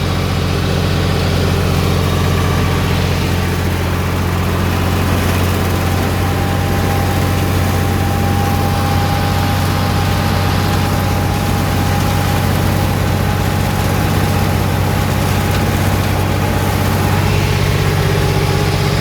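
Tractor engine running steadily, pulling a mulcher. A faint steady whine comes in about five seconds in and fades out around sixteen seconds.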